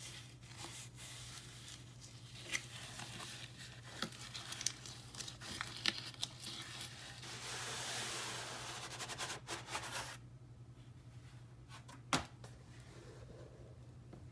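Cardboard and paper packaging being torn and crinkled open by hand, with scattered sharp clicks and a longer tearing stretch about halfway through. It turns quieter after about ten seconds, broken by one sharp click.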